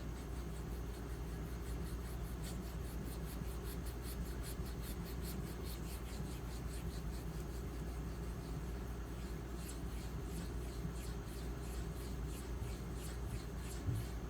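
Small M390-steel knife blade stroked across a 4000-grit diamond matrix bonded sharpening stone: a run of quick, light scraping strokes, then slower, sparser ones, over a steady low hum.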